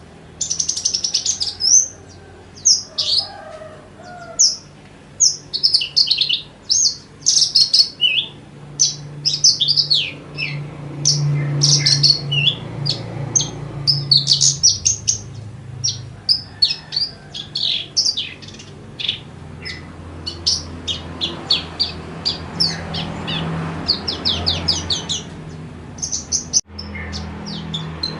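Javan bush lark (branjangan) singing a long, fast run of varied chirps, trills and whistled notes with only very short pauses between phrases.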